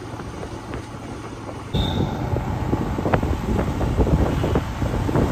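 Wind rushing over the microphone of a moving motorcycle, with the engine running underneath; the wind noise jumps suddenly louder about two seconds in.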